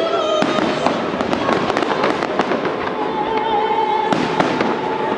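Fireworks bursting and crackling in quick succession, with music playing over them in long held notes.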